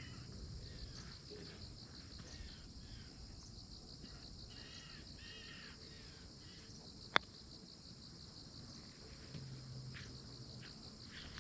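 Faint, steady pulsing chirr of insects, with a bird calling a few times around the middle and a single sharp click about seven seconds in.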